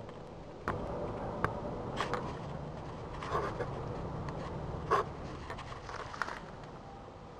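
Handling noise from a handheld camera: irregular scrapes and sharp clicks as it is rubbed against window glass and moved about. The loudest knock comes about five seconds in.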